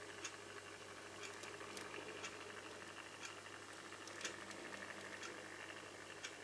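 Small motorised display turntable running faintly: a steady low hum with light, irregular clicks.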